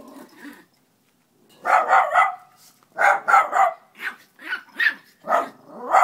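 Dogs barking during play, in quick runs of two or three short barks that start about a second and a half in and keep coming.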